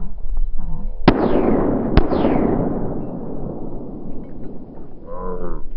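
Two shotgun shots about a second apart, each echoing and fading away over a couple of seconds, fired at a flushed pheasant. A short whining call follows near the end.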